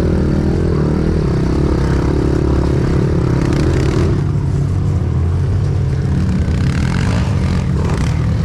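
Pit bike engines running at low revs. A second bike is close by, and a higher engine note fades out about four seconds in.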